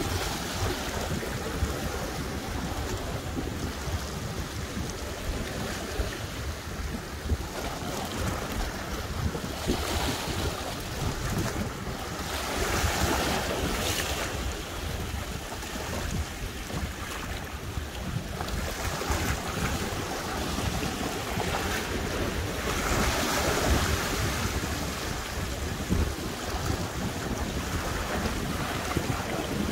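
Sea waves washing and surging over shoreline rocks, with wind buffeting the microphone; the wash swells louder a few times, around ten, thirteen and twenty-three seconds in.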